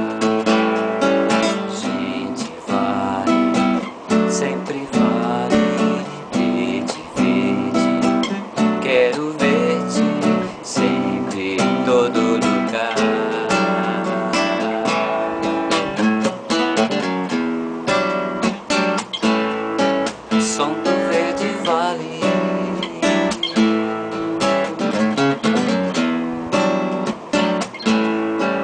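Instrumental music: acoustic guitar strummed and plucked with a steady rhythm, without singing.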